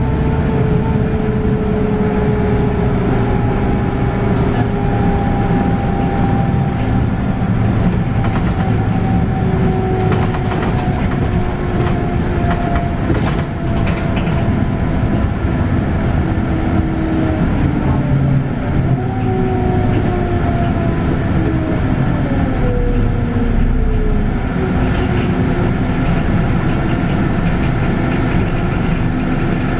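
Scania K280UB bus heard on board: its ZF Ecomat six-speed automatic gearbox whines over the steady rumble of the Scania five-cylinder diesel and the road. The whine falls slowly in pitch, jumps up once about two-thirds through, then falls again.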